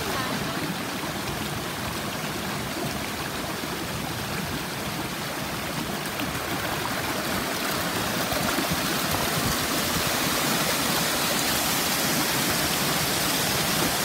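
Water of a stream and a small waterfall rushing and splashing over rocks, a steady hiss that grows louder over the second half.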